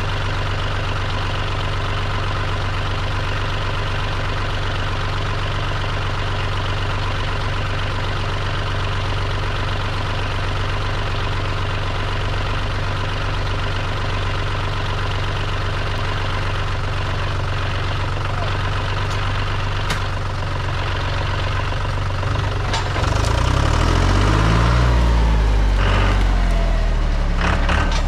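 John Deere utility tractor's diesel engine idling steadily, then revving up under load about 23 seconds in as the tractor moves. A few sharp cracks near the end.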